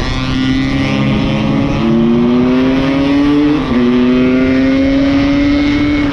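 Yamaha RX-King 135 cc two-stroke single-cylinder motorcycle engine pulling under way. Its pitch climbs steadily, drops briefly about three and a half seconds in as at a gear change, then climbs again.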